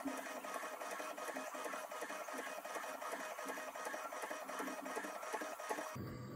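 Creality K2 Combo 3D printer running its calibration routine: the stepper motors drive the print head across the gantry with a steady, rhythmic mechanical whir. The sound changes to a lower rumble near the end.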